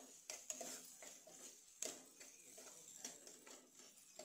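Steel spoon stirring chopped onions in a frying pan, with light, irregular clinks and scrapes of the spoon against the pan.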